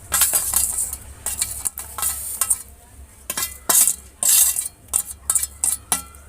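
A metal spoon stirring in a metal cooking pot, clinking and scraping against its sides in a quick, irregular series of ringing knocks. The strikes are loudest a few seconds in.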